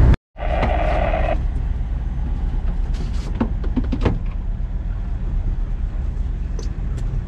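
Boat engine running at low speed, a steady low rumble, with a few light knocks about three to four seconds in.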